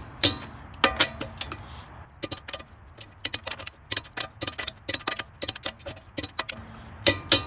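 Click-type torque wrench working on wheel lug nuts set to 108 N·m (80 ft-lb): rapid runs of ratchet clicks as the handle swings back, and a few louder single clicks near the start and end, the wrench's click signalling that the set torque is reached.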